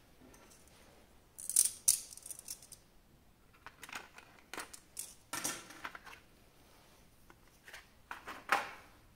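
Small plastic figure parts and packaging being handled: scattered clicks, taps and rustles in short clusters, the loudest about one and a half seconds in and another near the end.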